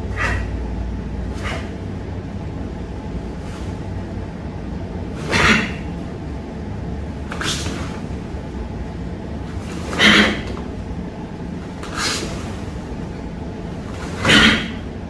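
A karateka performing Bassai Dai kata solo: short sharp bursts of breath and uniform snap with his techniques, three of them loud (about 5, 10 and 14 seconds in) and several fainter, over a steady low room hum.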